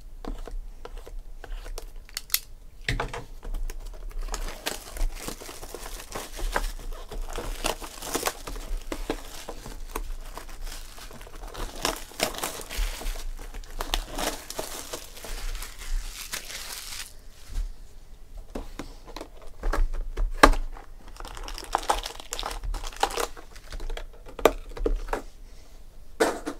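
Plastic shrink wrap torn off a sealed trading card box and crumpled: a dense crinkling with many sharp crackles for much of the time, thinning out to scattered crackles and taps near the end as the box is opened.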